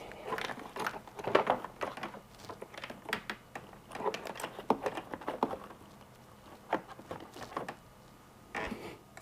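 Hands handling wiring and plastic parts: a run of irregular small clicks, taps and rustles, busy at first and thinning out in the last few seconds.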